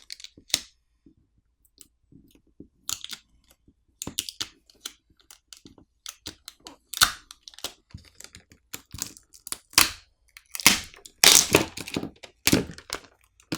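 Irregular crackles, clicks and short tearing scrapes as a smartphone battery is pried and peeled off its adhesive, the loudest and densest crackling coming near the end.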